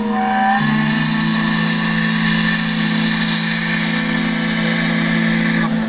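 Sternwheel steamboat's steam whistle blowing one long, steady blast with a hiss of steam. It starts about half a second in and cuts off sharply near the end.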